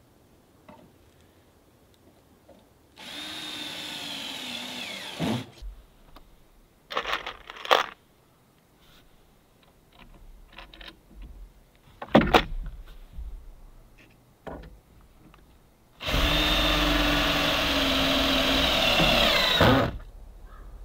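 Power drill driving screws into deck boards: a run of about two seconds with a steady whine that drops in pitch as it stops, a few short bursts and knocks, then a longer run of about four seconds that cuts off sharply near the end.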